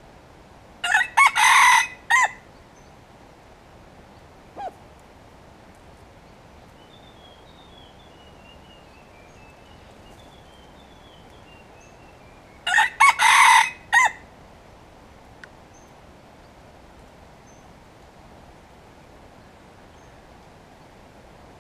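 Red junglefowl rooster crowing twice, about eleven seconds apart; each crow is a short, broken call lasting about a second.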